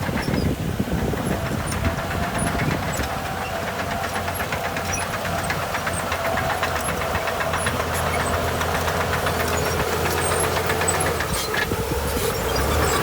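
Heavy diesel earthmoving machinery running steadily, a low engine drone with a faint wavering whine over it.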